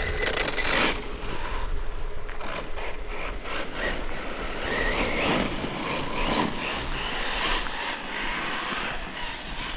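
Losi Tenacity MT 1/10 scale RC monster truck making a speed pass: its electric motor whines up in pitch as it accelerates, over a haze of tyre and dirt noise and wind on the microphone.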